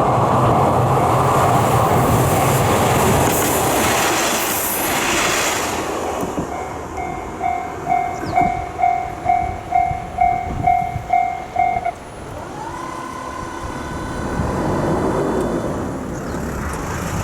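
A train runs past the level crossing for the first several seconds. Then the 1987 Sankosha electronic level-crossing alarm is heard clearly, a single electronic tone pulsing about twice a second. It stops about twelve seconds in as the crossing clears, and road traffic follows.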